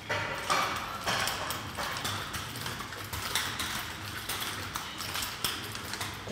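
Wooden nunchaku being spun and caught by hand, giving a string of irregular sharp clacks and taps, several a second.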